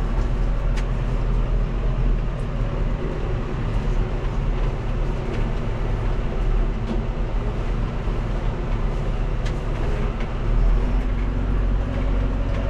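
Farm machine's engine running steadily with a low drone while it works the field.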